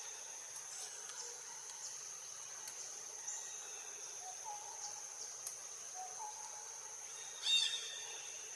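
Insects droning with a steady high-pitched tone, with a few faint bird notes and one louder, short bird call near the end.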